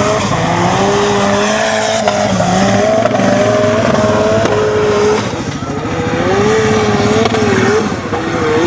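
Formula Offroad buggy engine at high revs as the car claws up a steep sand hill, its pitch rising and wavering as the wheels spin and grip. It eases off briefly about five seconds in, then picks up again.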